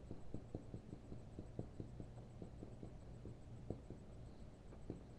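Faint, soft, irregular tapping, several taps a second, over a low steady hum.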